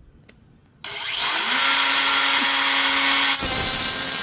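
Craftsman V20 brushless 3-inch cut-off tool switched on about a second in, its whine rising as the wheel spins up to a steady high pitch. About three seconds in the sound turns to a harsh grinding as the wheel bites into roughly 14-gauge sheet steel and cuts right through it.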